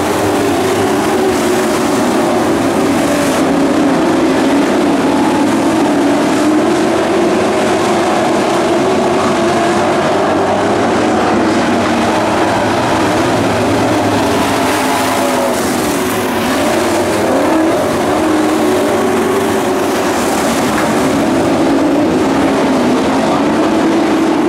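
Pack of dirt-track Pro Truck racing engines running hard around the oval, their pitch rising and falling as the trucks accelerate down the straights and lift for the turns.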